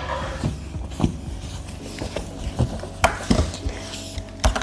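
Scattered clicks and knocks of hands working a plastic child lock on a fridge door, with a sharper knock about three seconds in and another near the end.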